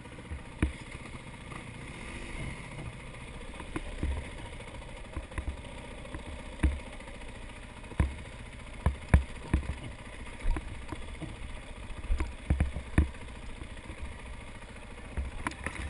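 Dirt bike engine running at low revs, heard from a helmet-mounted camera, with frequent sharp knocks and thumps as the bike and rider jolt over a rutted dirt trail.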